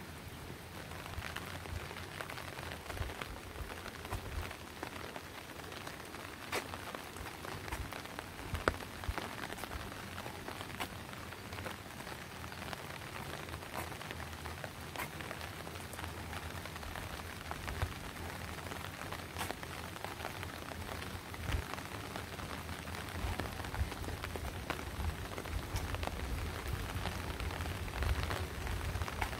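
Steady rain, with many separate drops ticking sharply close by. A low rumble runs underneath and grows stronger over the last several seconds.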